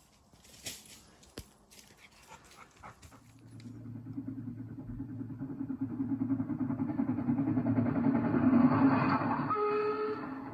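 A steam-hauled train passing, its running noise building steadily to its loudest near the end, with a brief steady tone just before it fades. A few faint clicks and knocks come before it, in the first few seconds.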